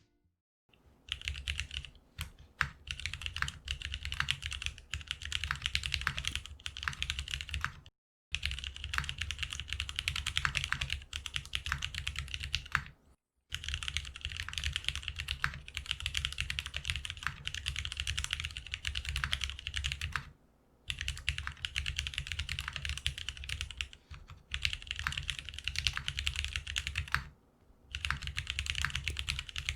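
Fast typing on a GeonWorks F1-8X custom mechanical keyboard with Krytox-lubed Cherry black linear switches. The clicks come in continuous runs broken by short pauses about five times.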